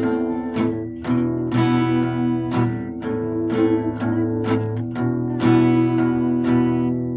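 Acoustic guitar strummed, a run of chords changing about every second, each ringing on into the next stroke.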